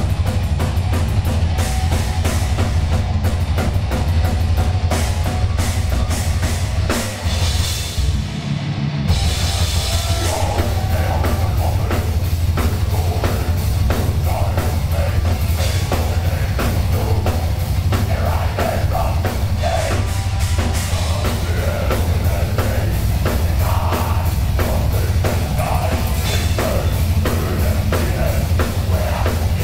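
Live heavy metal band playing: distorted electric guitars, bass guitar and a pounding drum kit. The sound thins out briefly about seven seconds in, and the full band crashes back in about two seconds later.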